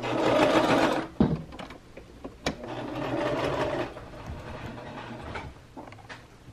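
Sewing machine stitching in two short runs of about a second each, with a couple of sharp clicks between them.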